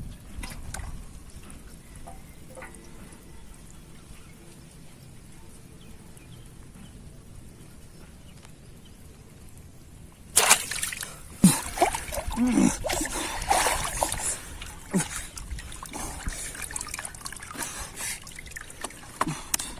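Water trickling faintly, then from about ten seconds in, loud irregular splashing and sloshing of water.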